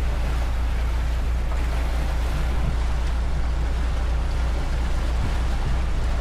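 Motor cruiser's engine running steadily under way: a deep, constant drone, with wind and water noise over it.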